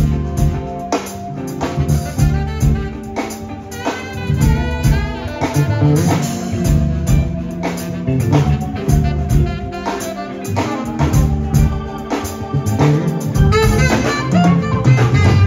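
Live funk band playing through a sound check: drum kit keeping a steady beat under bass, guitar and horn lines.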